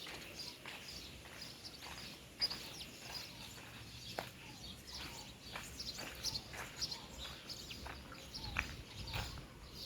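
Many small birds chirping in short, scattered calls over a faint steady hiss of wind, with a brief low rumble of wind near the end.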